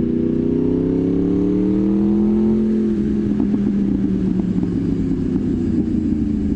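Sport motorcycle's four-cylinder engine accelerating, its pitch rising for about two and a half seconds. The pitch then drops slightly and holds steady, with irregular pops from the exhaust.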